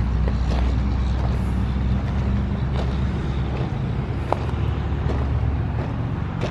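A motor vehicle's engine running at a steady idle: a low, even hum over background noise.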